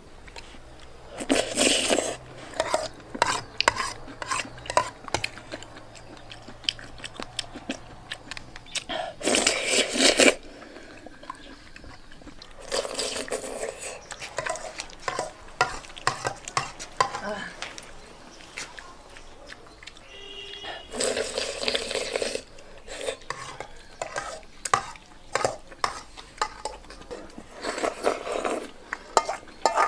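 Metal spoon clinking and scraping against an enamel basin as the last of the broth is scooped up, with loud slurps of hot broth, five or so of them spread through, the last as the basin is tipped up to drink from.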